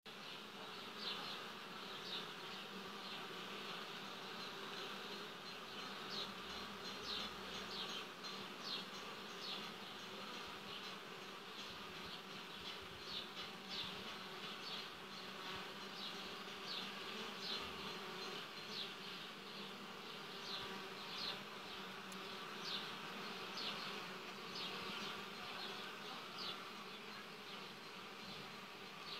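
Honeybees buzzing steadily at the hive entrances, many bees flying in and out. Frequent short high-pitched sounds come and go over the buzz.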